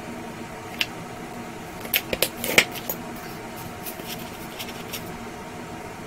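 Light clicks and taps of a small bobby-pin pick and small metal tools being handled on a workbench: one about a second in, then a quick cluster of several about two seconds in, and fainter ticks after. A steady low hum runs underneath.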